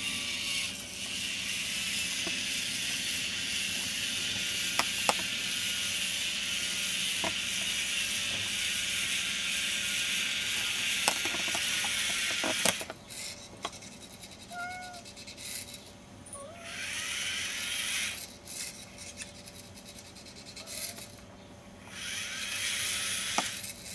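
Small tracked rover robot's geared drive motors and tracks running over carpet, a steady rasping whir that stops about halfway through; after that it runs only in a few short spurts.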